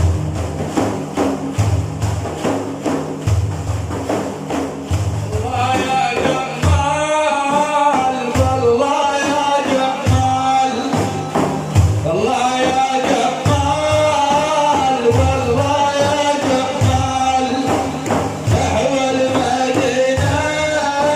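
Hand-beaten frame drums playing a steady rhythm of Iraqi devotional praise-chanting (manqaba). About six seconds in, a solo voice enters with a wavering, ornamented chant over the drums.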